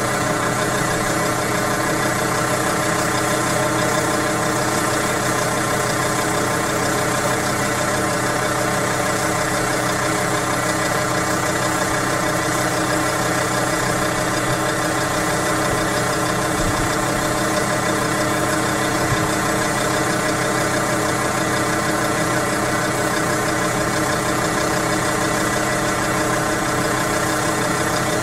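An engine idling steadily, with no change in pitch or level.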